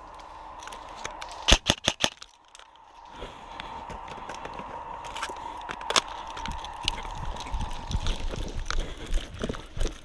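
A quick burst of about five sharp airsoft gun shots about a second and a half in. Then continuous crunching and rustling of brush and dry leaves, with scattered snaps and a single crack near the middle. A steady high-pitched hum sits underneath for most of the time.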